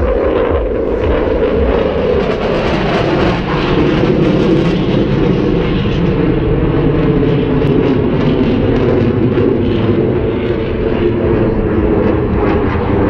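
Dassault Rafale fighter jet's engines, a loud, steady rumble with a low hum running through it as the jet flies its display.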